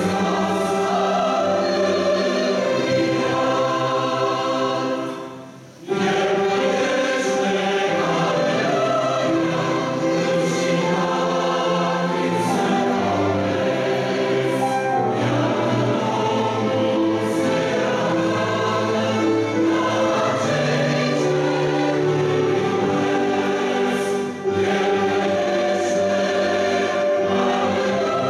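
Mixed church choir singing a hymn, accompanied by a string orchestra and piano. About five seconds in the music fades away for a moment, then comes back in full.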